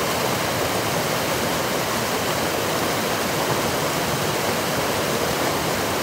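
Steady rush of a mountain creek pouring over a log in a small cascade and churning into the pool below.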